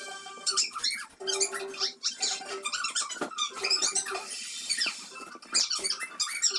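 Chalk squeaking against a blackboard wall while drawing: many short, high squeaks in quick succession, with brief pauses about one and two seconds in.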